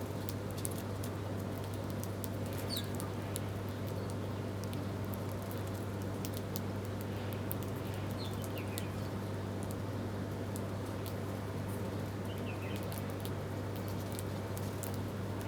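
Small birds pecking and feeding: a scatter of quick light clicks, with a few brief high chirps. A steady low hum runs underneath.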